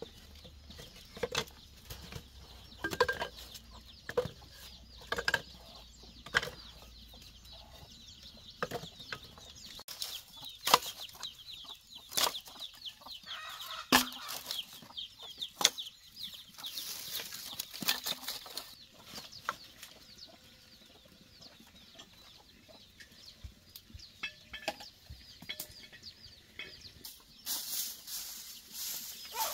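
Chickens clucking, with scattered sharp knocks of bamboo pieces being handled. Near the end a broom starts sweeping the dirt ground with a steady rushing scrape.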